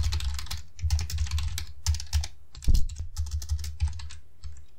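Typing on a computer keyboard: a fast, uneven run of keystrokes, with one heavier key strike about two and a half seconds in.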